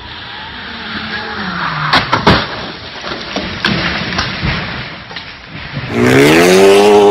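A car on a wet road, the hiss of its tyres on the water growing louder, then crashing about two seconds in: two loud impacts with breaking, followed by scattered clatter of debris. Near the end a car engine revs up hard and holds high.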